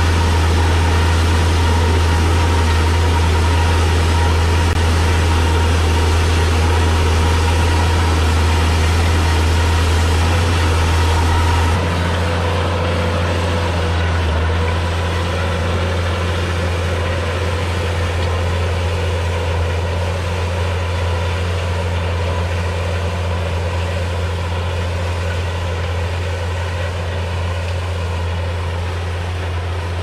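Farm tractor's diesel engine running steadily under load, a loud, constant low drone. About twelve seconds in the engine note shifts slightly and the sound gets a little quieter.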